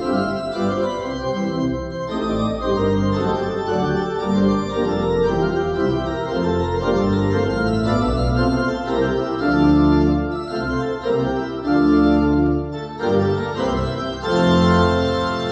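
Church organ played in full chords with a strong bass line, the chords changing every second or so, with a long chord held near the end.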